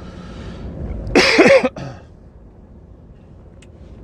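A man coughs hard once, about a second in, with a short second catch of breath just after, over the steady low rumble of the lorry cab on the move.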